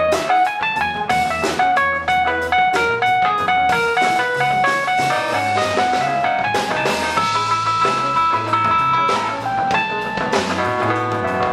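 Live band playing an instrumental passage: a run of quick electric guitar notes over electric bass and drum kit, with one note held for about two seconds past the middle.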